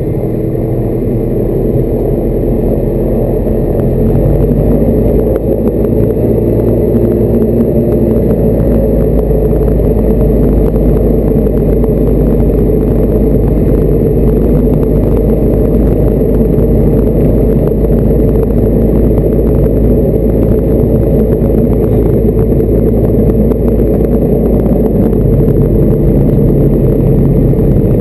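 Diamond DA40 light aircraft's engine and propeller running steadily as the plane taxis, heard from inside the cockpit. The engine noise grows louder over the first few seconds, and its low pitch shifts near the end.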